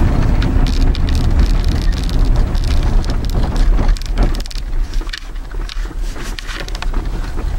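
Vehicle driving on an unplowed, snow-covered dirt road: a heavy low rumble of tyres and suspension with scattered spattering and knocks, easing off a little about five seconds in.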